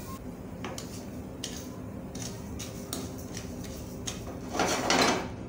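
A wooden spoon scraping dry granulated sugar across a stainless steel pan, one louder scrape about four and a half seconds in, with scattered faint ticks before it.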